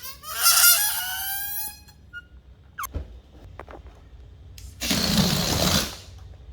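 A balloon deflating: air escaping through its stretched neck makes a high squeal whose pitch slides about, fading out about two seconds in. A few faint squeaks and taps follow, then about five seconds in a brief rush of air lasting about a second.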